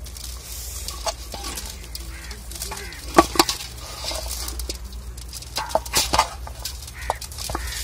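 Hands working raw chicken pieces in an aluminium pot, with scattered sharp knocks and clinks against the metal. The loudest come about three seconds in and again around six seconds, over a steady low rumble.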